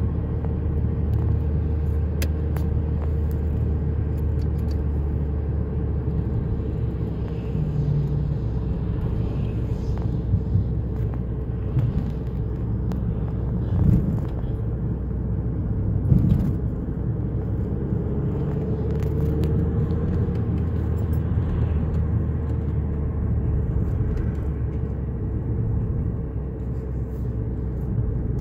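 Car interior noise while driving: a steady low engine drone and tyre noise on a wet road, heard from inside the cabin. Two brief louder bumps come about 14 and 16 seconds in.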